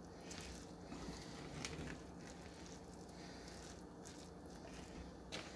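Faint stirring of rice and vegetables in a metal saucepan with a plastic spoon, a few soft scrapes over a low steady hum.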